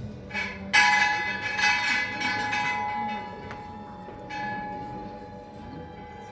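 A bell rung by hand in a quick run of clangs, the loudest about a second in, then one more stroke about four seconds in, its tone ringing on and slowly dying away.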